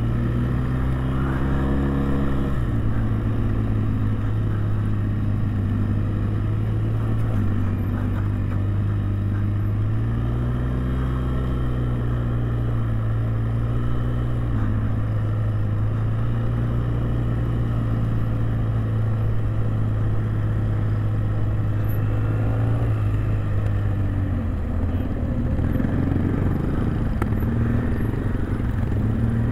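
Jinling 250 ATV engine running under way, a steady drone whose pitch dips and rises a few times with the throttle.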